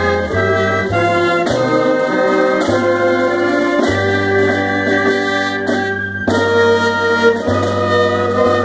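Pep band of trumpets, saxophones and clarinets playing an anthem in slow, held chords over a low bass line, with a short break between phrases about six seconds in.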